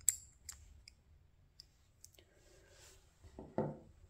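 Sharp little clicks of the yellow counterweight pieces of a 1/50 scale Liebherr LTM 1090-4.2 model crane being handled, several in the first two seconds, then a short soft knock near the end as a piece is set down on the wooden table.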